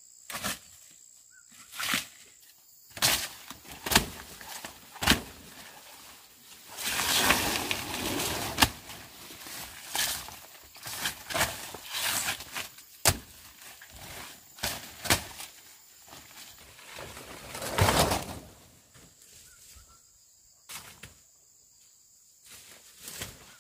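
A run of sharp knocks at irregular intervals, roughly one a second, with a longer rustling, scraping stretch about a third of the way through.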